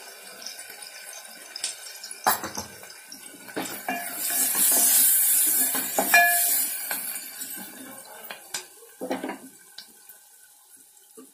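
A wooden spatula scrapes and knocks against an aluminium pot, stirring turmeric into onions, green chillies and garlic frying in oil. Under it the oil sizzles, swelling louder from about four to seven seconds in, with sharp knocks scattered throughout.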